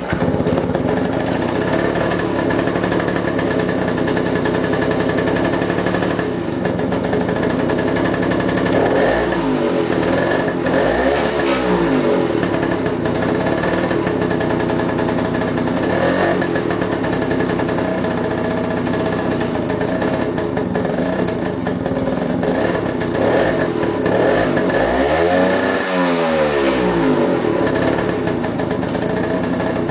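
1971 Garelli Gulp Matic moped's 49cc two-stroke engine idling steadily, with brief revs a third of the way in and a bigger rev rising and falling back to idle near the end.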